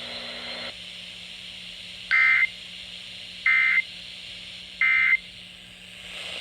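Three short bursts of Emergency Alert System data tones, the end-of-message code that closes the severe thunderstorm warning, with about a second of radio hiss and a faint hum between them.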